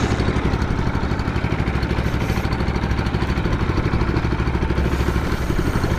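Boat engine running steadily with a fast, even beat.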